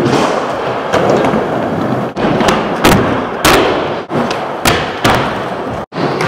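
Skateboard wheels rolling on concrete, with several sharp smacks of the board hitting and landing. The sound breaks off abruptly a few times.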